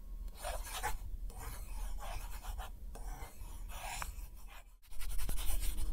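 Scratchy pen-on-paper drawing sound: a series of rasping strokes, louder about five seconds in.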